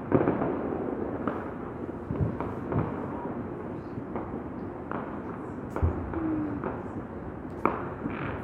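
Fireworks and firecrackers going off all around: a steady crackle with irregular sharp bangs and booms. The loudest bang comes just after the start, with others a couple of seconds in, around the middle and near the end.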